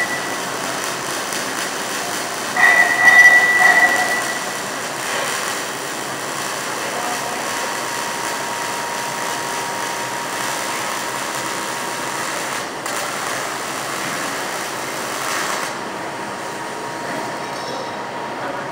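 Steady crackling hiss of a stick-welding arc burning a 6011 electrode on steel plate. A brief high squeal rises over it about three seconds in.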